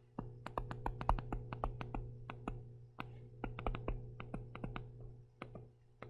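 Stylus tapping and clicking against a tablet or touchscreen while handwriting: a quick, irregular run of small clicks over a faint steady electrical hum.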